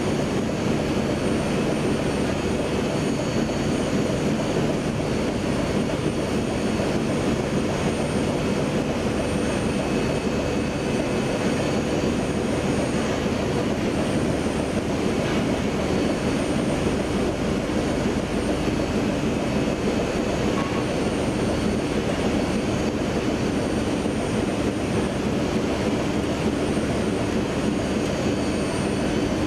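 Adult pull-up diaper production line running at full speed: a steady, dense mechanical drone with faint constant high-pitched whines on top.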